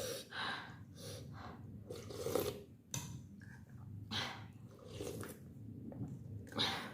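Close-miked eating sounds: a person chewing and slurping vegetable thukpa noodle soup, in irregular short bursts.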